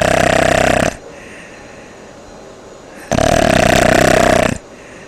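A person snoring, the uvula fluttering: one loud snore ends about a second in and another starts about three seconds in and lasts about a second and a half, each with a fast flutter.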